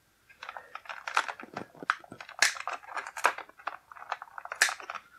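Thin clear plastic packaging tray crackling and crinkling under the hands, with sharp clicks from metal twist ties being snipped with cutters. The crackles start about half a second in and come irregularly.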